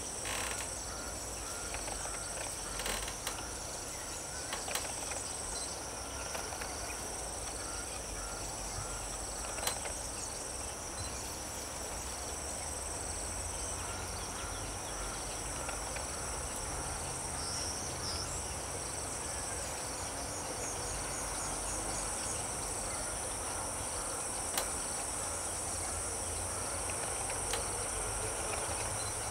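Steady, high-pitched chorus of insects, with a few faint clicks.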